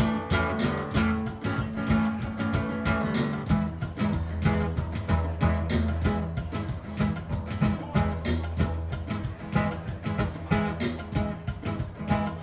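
Acoustic guitar strummed in a steady rhythm over a drum-machine beat and bass line from a Boss DR-880: an instrumental passage with no singing.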